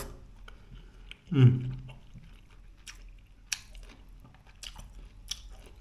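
A person chewing a mouthful of meatball, with a few small wet mouth clicks. A short voiced hum, falling in pitch, comes about a second and a half in.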